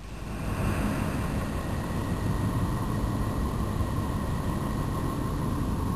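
Made-up "sound of Neptune" space ambience: a steady, deep rumbling noise drone with faint steady tones higher up. It swells in over the first second and then holds steady.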